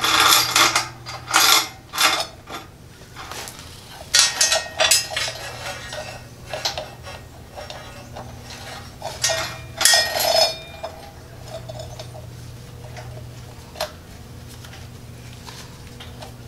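Steel roller chain being handled and wrapped around a sprocket: the links clink and rattle against each other and the metal frame in irregular bursts, busiest around ten seconds in, over a faint steady low hum.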